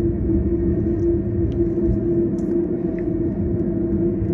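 Freight cars of a BNSF manifest train rolling past: a steady rumble of wheels on rail with a constant low hum.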